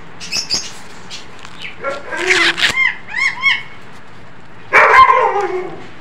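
Dog barking and yelping in short bouts, about two seconds in and again near five seconds, begging to be fed. A few small-bird chirps come just before.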